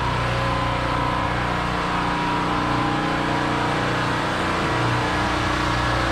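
A small engine aboard a bowfishing boat running at a steady speed, an even drone with a few fixed low tones and no change in pitch.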